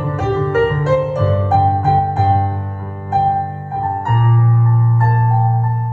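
Instrumental break in a slow devotional ballad: a piano-like keyboard plays a melody of single notes over sustained low notes, then settles on a louder held chord about four seconds in.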